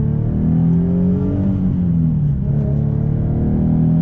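Nissan 370Z Nismo's V6 heard from inside the cabin through a non-resonated Fast Intentions TDX cat-back exhaust with catalytic converters fitted, accelerating hard from a pull-away. The engine note climbs in pitch, drops about two seconds in as it changes gear, then climbs again.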